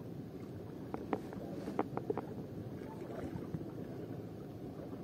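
Steady wind and sea noise around a small boat at sea. A quick run of five or six light clicks comes between about one and two seconds in.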